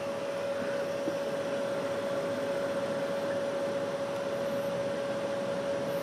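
Alpicool portable car fridge with an LG compressor running, heard close up at its vent: an even fan hiss with a steady mid-pitched hum.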